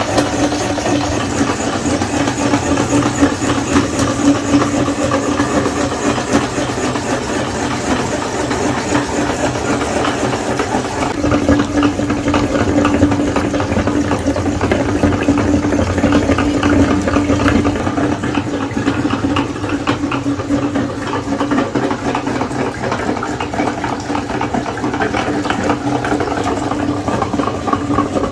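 Electric meat grinder running steadily with a constant motor hum and a rattling, churning noise as it grinds soft food.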